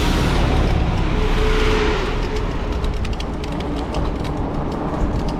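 Steady wind and road rumble from a moving fat-tire e-bike, with many light ticks in the second half.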